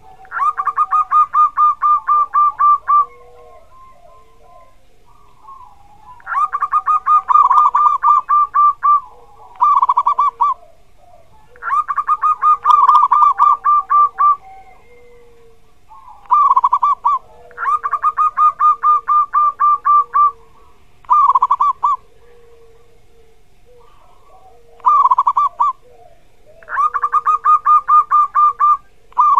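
Zebra dove (perkutut) singing: repeated phrases of rapid, pulsed cooing notes, each phrase lasting a second to about three seconds, with short pauses between them.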